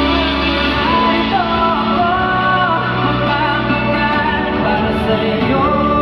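Live pop song sung through a large hall's sound system: a male vocal melody gliding between notes over sustained backing instruments and bass.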